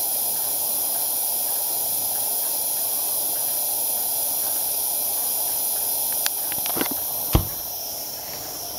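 Tilley AL10 paraffin pressure lamp burning with a steady hiss from its pressurised burner and mantle. A few light knocks come near the end, after which the hiss is a little quieter.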